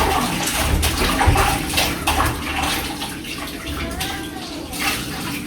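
Water splashing and sloshing as chicken pieces are washed, with irregular knocks and splashes, loudest in the first half.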